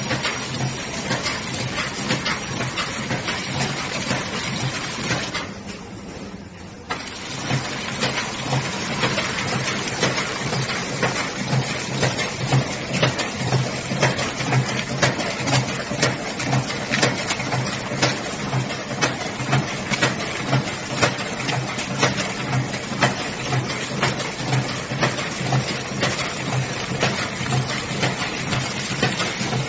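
Automatic flow-wrapping packaging machine running as it wraps energy balls: a continuous mechanical clatter with a regular beat of about two strokes a second over a pulsing hum. It drops quieter briefly about six seconds in.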